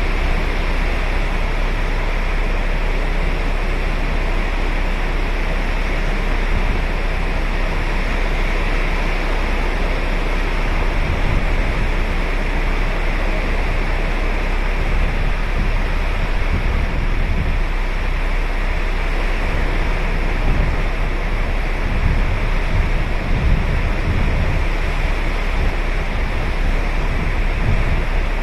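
Ocean surf washing onto a sandy beach: a steady hiss of breaking waves, with low rumbles swelling now and then in the second half.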